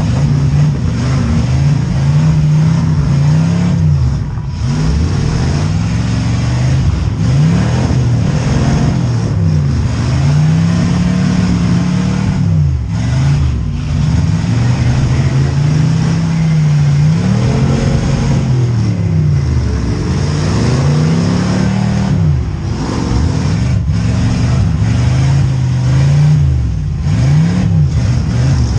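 V8 demolition derby car engines revving hard, their pitch rising and falling over and over as the cars accelerate and back off.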